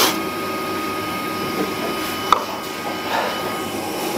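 Steady whirring of a fan or blower with a thin high whine running through it, and a single small click a little over two seconds in.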